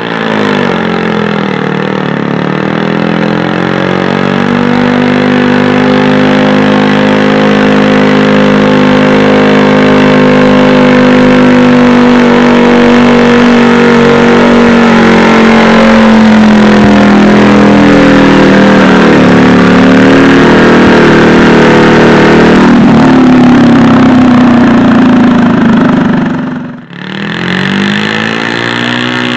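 Loud modified 16 hp garden tractor engine run flat out while pulling a weight-transfer sled. The pitch climbs at the start, then holds and slowly sinks as the load builds. It drops out suddenly near the end, followed by another engine revving up and back down.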